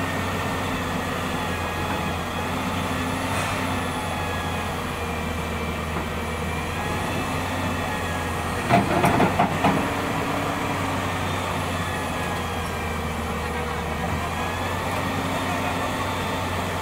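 Hyundai wheel excavator's diesel engine running steadily under load, its higher tones rising and falling as the boom and bucket push the machine up onto a lowbed trailer. A short cluster of loud clanks comes about nine seconds in.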